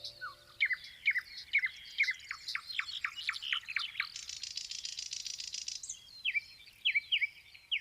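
Songbird chirping: a run of quick, downward-sliding whistled notes, a fast buzzy trill a little past the middle, then a few more sharp chirps near the end.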